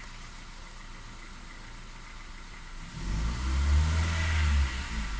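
Kia Ceed 1.4 MPI petrol engine, which has an ignition misfire, revving up briefly about three seconds in and dropping back to a steady idle.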